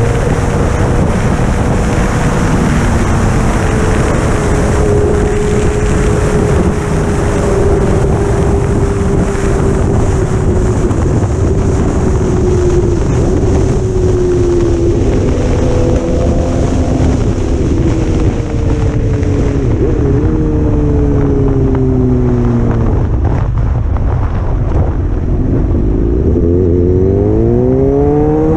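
Motorcycle engine running at highway speed under heavy wind rush on a helmet-mounted microphone. The engine note sags slowly, then climbs again near the end as the bike accelerates.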